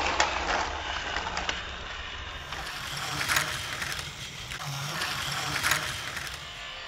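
Battery-powered motorized toy Thomas engine running along plastic play-set track, a steady small-motor whir and rattle with light clicks and a few sharper plastic clatters.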